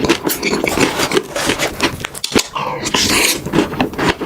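Close-miked eating: rapid chewing, crunching and smacking of food in a mouth.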